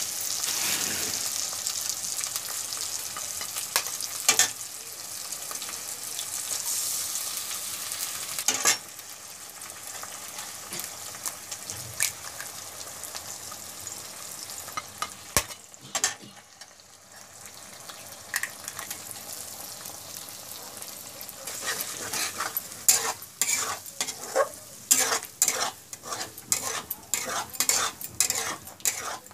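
Eggs and masala frying in oil in a metal kadai, a steady sizzle, louder in the first few seconds, broken by a few sharp knocks as eggs are cracked. From about two-thirds through, a metal spatula scrapes and stirs the scrambling eggs in quick repeated strokes.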